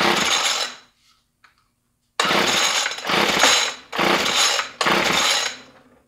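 Jonsered GT21L string trimmer's small two-stroke engine being pull-started by its recoil cord, five pulls in all: one, a short pause, then four in quick succession. It does not settle into running. These are first start attempts after new fuel lines and pickup, on fresh 40:1 mix, with the old carburettor diaphragm left in.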